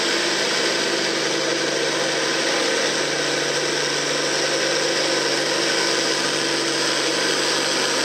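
Farm stock diesel tractor engine under full load pulling a weight-transfer sled, running steadily at a constant pitch.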